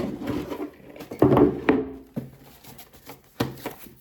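Cardboard product box being handled and opened: a few short knocks and scrapes, loudest about a second and a half in.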